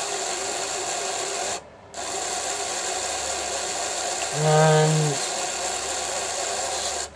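N-gauge Graham Farish Class 101 DMU motor bogie running on bench power, a steady small-motor and gear whirr with a high whine, as the freshly rebuilt bogie is being run in. It cuts out for a moment about a second and a half in, then runs on and stops near the end.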